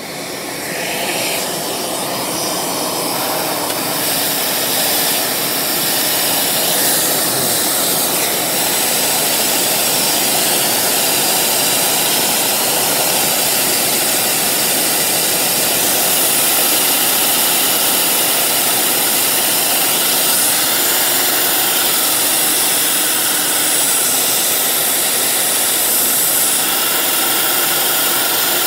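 Vacuum cleaner running, its suction driving a Lego turbine engine: loud, steady rushing with a whine. It builds over the first few seconds as it spins up, then holds steady.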